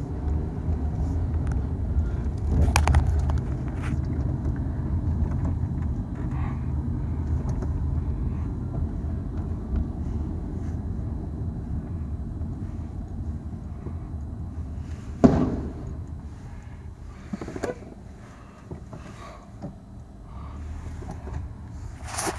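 Steady low rumble of a car driving, heard from inside the cabin, with one sharp loud bang about fifteen seconds in: the burning gas-station fuel pump exploding.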